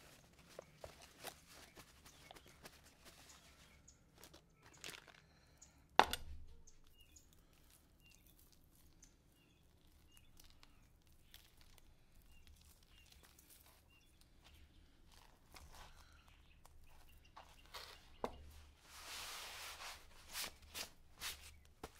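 Plastic meat packaging rustling and crinkling by hand as a netted beef roast is unwrapped and dabbed with paper towel, with one sharp knock about six seconds in. Near the end a paper towel is rubbed briskly over a plastic cutting board.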